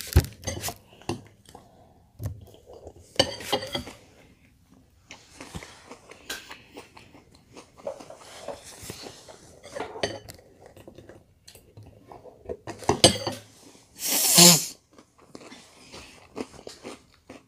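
A metal spoon clinking and scraping in a glass bowl of cereal and milk, with Peach Cheerios being chewed between spoonfuls. About fourteen seconds in there is one loud, short, noisy burst.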